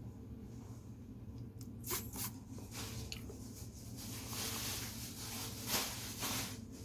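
Pen scratching across paper while drawing: a few short strokes about two seconds in, then a longer run of back-and-forth strokes from about four seconds, over a steady low room hum.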